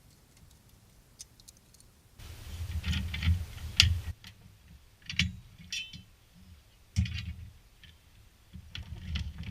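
Metal clinking and clattering of hand tools and hardware being handled, a series of sharp clicks with dull knocks underneath, busiest from about two to four seconds in.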